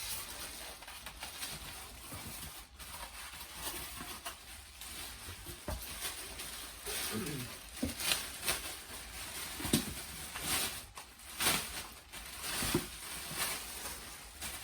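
Unboxing handling noise: packaging and the vacuum's plastic attachments being handled, with scattered clicks, scrapes and light knocks that grow busier in the second half.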